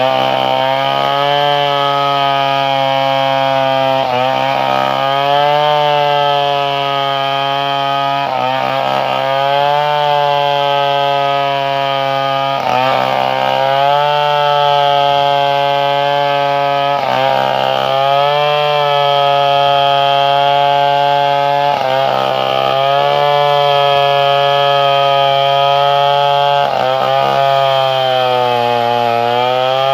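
Two-stroke chainsaw running at high revs, cutting wood. Its pitch sags and recovers about every four to five seconds as the load on the chain rises and eases.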